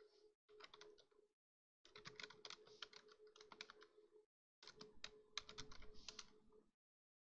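Faint typing on a computer keyboard: quick runs of keystrokes broken by short pauses, over a low steady hum.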